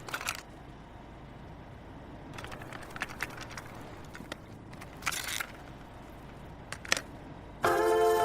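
Low background hiss with scattered faint clicks and crackles in the gap between songs. Near the end, music starts abruptly with sustained chords.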